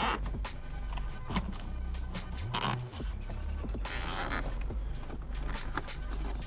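Plastic cable ties being zipped tight around wiring, two quick ratcheting zips with handling and scraping of the wire loom between them.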